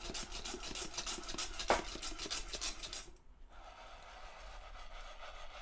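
Coffee beans rattling and rolling around a single-handled pot as it is shaken over a gas burner, at the start of first crack in the roast. The rapid rattling stops about three seconds in, leaving a faint steady hiss.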